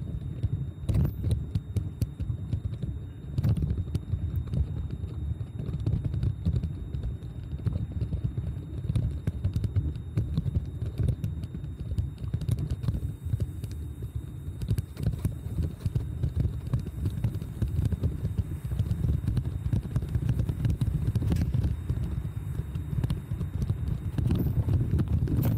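Wind and ride noise on a bicycle-mounted camera: a low, uneven rumble with scattered clicks and rattles.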